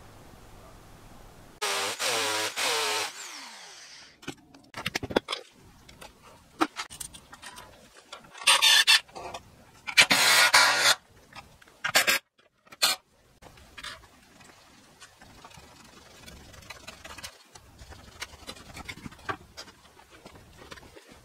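Cordless drill/driver running in several short bursts, driving screws into a wooden batten, with knocks and clatter of timber and tools being handled in between.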